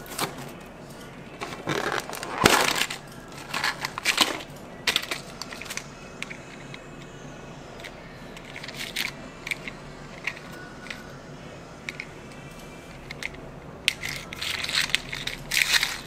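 A clear plastic candy tub and its wrapped contents being handled: crackling and crinkling of plastic, with sharp clicks. It is loudest in bursts in the first few seconds and again near the end, with a few single ticks in between.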